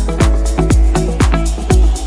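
Electronic dance background music with a steady kick drum about twice a second.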